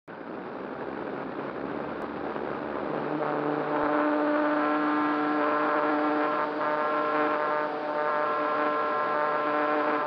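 A model glider's nose-mounted electric motor and propeller whine steadily under power, heard from an onboard camera with a steady rush of wind. The sound grows louder over the first few seconds and the whine settles in about three seconds in as the plane takes off and climbs.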